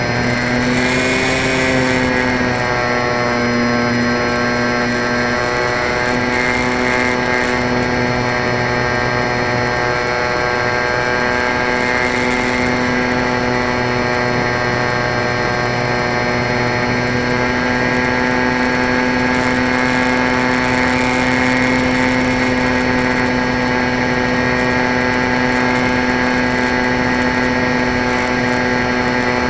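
Electric motor and propeller of an RC model plane, heard from a camera on board: a steady whine, rising a little in pitch about a second in, with short rushes of wind hiss now and then.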